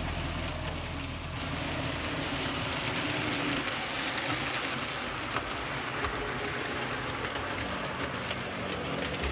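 OO gauge model train running along the track: a steady rushing rattle of wheels and motor, loudest about four seconds in as a Lima Deltic diesel model passes close.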